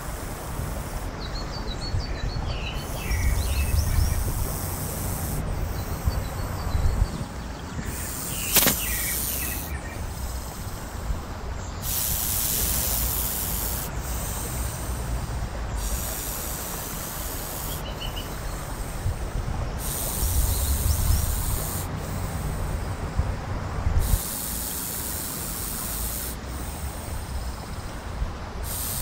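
Snake hissing: a breathy hiss that swells and fades every couple of seconds. A few faint bird chirps sound in the background.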